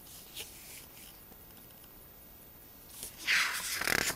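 Handling of a paper instruction sheet: mostly quiet at first with a faint click, then about three seconds in a loud rustle of paper as the sheet is moved.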